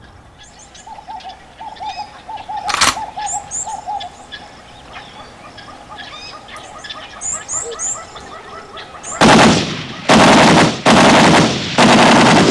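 Birds chirping and trilling in woodland, with one sharp crack about three seconds in. About nine seconds in, a machine gun fires four long bursts, much louder than the birdsong.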